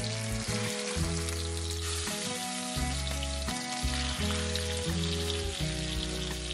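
Pieces of marinated salmon sizzling in hot oil in a wok as they are laid in one after another, a steady frying hiss. Background music plays along with it.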